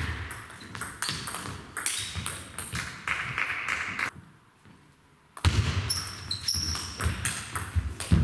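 Table tennis rallies: the celluloid ball clicking off rubber paddles and bouncing on the table in quick succession, stopping for about a second near the middle before play starts again. Players' feet thud on the hall floor, and short high squeaks come in the second half.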